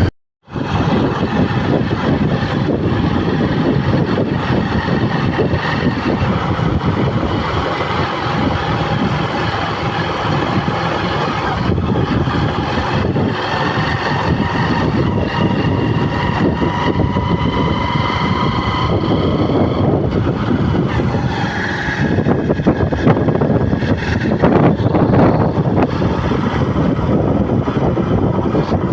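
Steady vehicle running noise, with a faint whine that rises slightly in pitch midway through.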